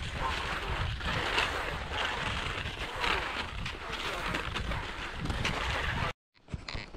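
Strong wind buffeting a phone's microphone: a dense, steady wind noise with a heavy low rumble, cutting off abruptly about six seconds in.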